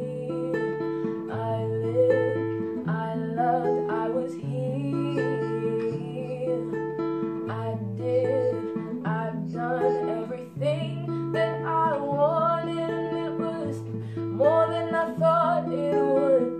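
Classical guitar picked in a repeating chord pattern, with its bass note shifting every second or two, while a girl's voice sings drawn-out phrases over it.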